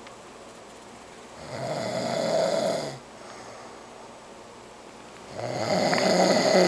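A person passed out asleep, snoring heavily: two long, loud snores about four seconds apart, with quieter breathing between them.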